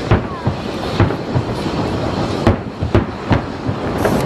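Fireworks salute: shells bursting in a run of sharp bangs, about seven in four seconds at uneven spacing, over a steady background noise.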